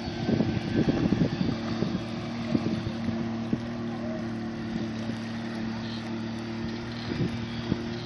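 Motorboat engine running steadily across the water as a low even hum. Wind buffets the microphone during the first couple of seconds.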